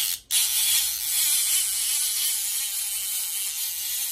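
Sea-fishing reel with a line counter spinning fast: a short clack, then a steady high whirring buzz from about a third of a second in.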